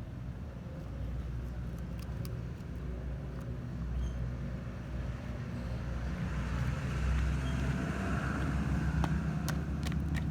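A motor vehicle engine running with a steady low rumble, growing louder about six seconds in, with a few sharp clicks over it.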